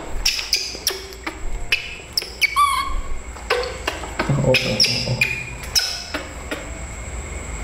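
Infant macaque giving repeated short, high-pitched squeaks and chirps, some sliding in pitch, while being held and washed.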